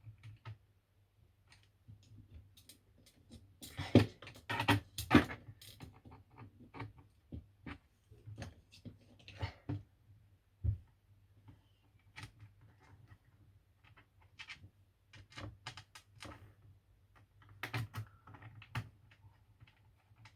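Scattered light clicks and knocks from handling a laptop, with a louder cluster about four seconds in and another near the end.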